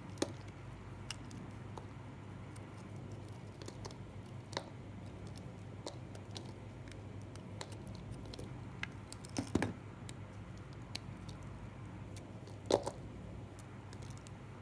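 Dry bar soap being cut with a knife: scattered crisp cracks and snaps, the loudest a cluster about two-thirds in and a single sharp snap near the end, over a faint steady low hum.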